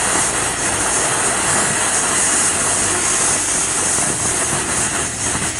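Ground fountain firework spraying sparks with a loud, steady hissing rush.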